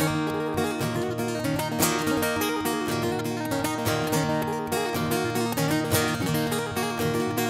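Solo acoustic guitar played live: a continuous instrumental passage of densely picked and strummed notes, with no singing.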